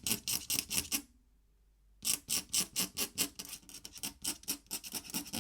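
Pen scratching on paper in quick back-and-forth hatching strokes, about five a second, with a pause of about a second before a second, longer run of strokes.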